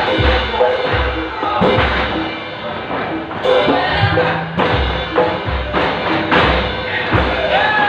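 Javanese gamelan music with a deep drum beat about every two-thirds of a second under steady ringing metallophone notes.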